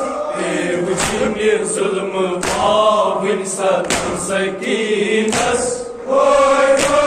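Male voices chanting a Kashmiri noha, a Muharram lament, in chorus, with a sharp beat about every one and a half seconds and a short break in the singing near the end.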